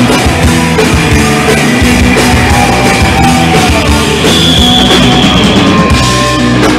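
Live rock band playing loud, with electric guitars, electric bass and a drum kit.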